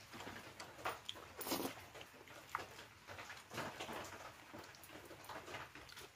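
Close-up chewing and lip-smacking of food: irregular wet mouth clicks with a few louder bites.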